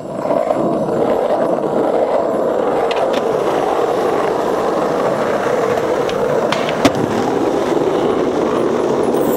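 Skateboard wheels rolling steadily over pavement, a continuous gritty roll, with a single sharp click about seven seconds in.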